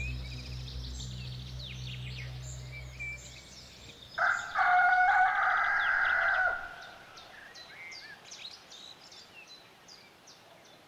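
A rooster crows once, a loud drawn-out call starting about four seconds in, with small birds chirping and singing around it.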